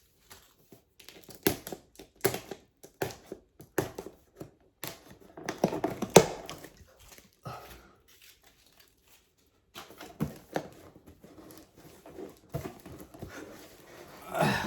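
A taped-up package being handled and pried at: scattered knocks and clicks with crinkling and tearing, broken by a quiet pause of about two seconds past the middle.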